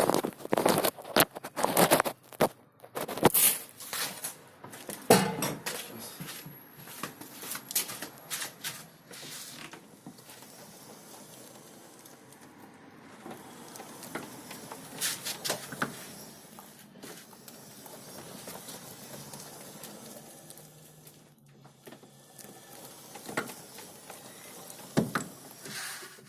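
Irregular metallic knocks and clicks from a Baltmotors Striker 500 EFI quad as it is rolled slowly: many close together in the first ten seconds, then only a few. This is the knock that appeared at 800 km, felt at very low speed.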